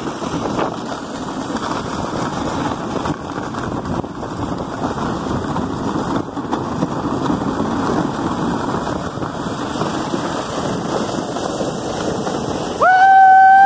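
Steady rushing noise of a one-dog sled speeding downhill over snow, runners hissing with wind on the microphone. Near the end, a loud, high-pitched call is held for about a second.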